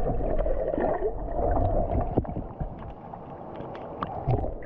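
Muffled water gurgling and sloshing heard through a submerged camera, with scattered clicks; louder for the first couple of seconds.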